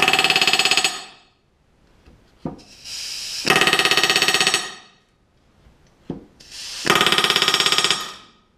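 Pneumatic rivet gun hammering rivets into the aluminium skin and stiffeners of an RV-7 elevator, back-riveting against a steel plate: three bursts of rapid hammering about a second long each, the first just after the start, the others about three and a half and seven seconds in. A short hiss of air comes before each burst, and a single sharp knock before the second and third.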